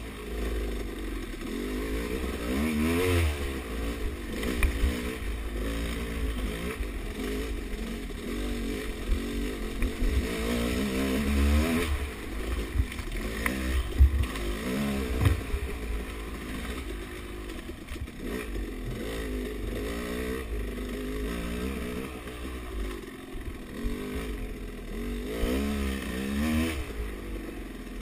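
Dirt bike engine being ridden hard, its pitch rising and falling over and over as the throttle is opened and shut through corners and straights, with occasional sharp knocks.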